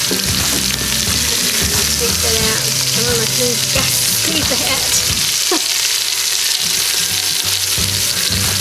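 Chunks of pork Boston butt searing in hot oil in an Instant Pot's stainless inner pot on sauté: a steady, even sizzle, with a utensil stirring and adding pieces.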